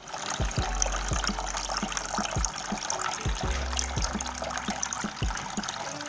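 Water trickling steadily from the three spouts of a homemade tabletop fountain and splashing into its basin, with scattered small drips.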